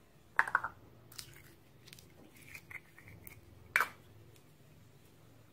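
Glossy slime being pulled from a small plastic cup and stretched by hand, making sticky squelches and clicks. There is a loud wet pop about half a second in and another just before four seconds, with lighter clicks between.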